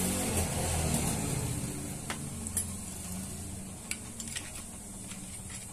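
Steady low mechanical hum, loudest in the first second or so, with a few light clicks and taps about two seconds in and again near four seconds as metal parts of the dismantled water pump are handled.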